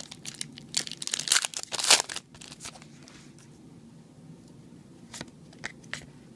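Foil booster pack wrapper crinkling and tearing open as a pack of trading cards is opened, a dense crackle over about the first two seconds, followed by a few soft isolated clicks of cards being handled.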